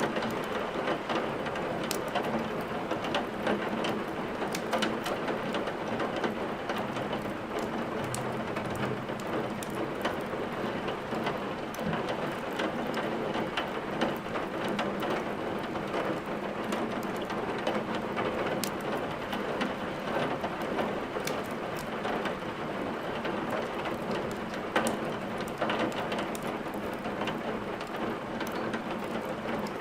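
Steady rain, with scattered sharp crackles of burning firewood over it.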